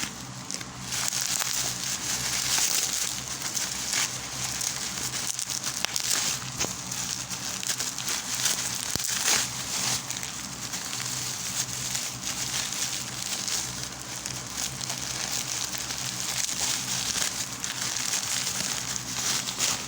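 Packaging crinkling and rustling with many small crackles as a parcel is opened, over a faint steady low hum.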